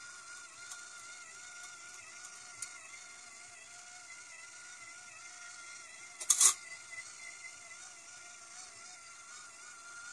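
Filawinder filament winder's small electric motor running with a steady, slightly wavering whine. A brief sharp clack about six seconds in.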